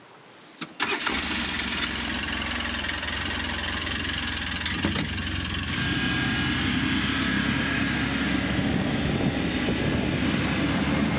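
A motor vehicle running on the road, with steady engine and road rumble that starts abruptly about a second in.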